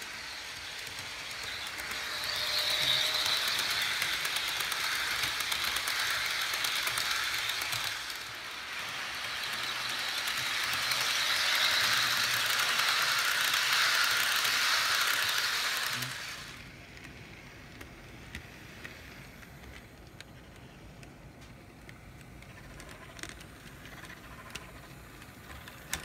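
HO scale model train rolling along the layout track, its wheels and running gear giving a steady rattling clatter with fine clicks. It swells loud twice as cars pass close, then drops away after about sixteen seconds to a quieter rattle with scattered clicks.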